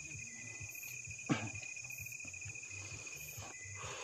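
Night insects trilling steadily in a continuous high chorus, with a single sharp click about a second in.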